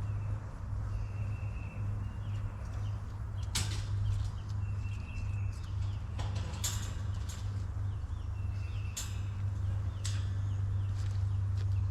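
Scattered sharp clanks and rattles, several times, as a metal hog panel is worked loose from the fence, over a steady low hum.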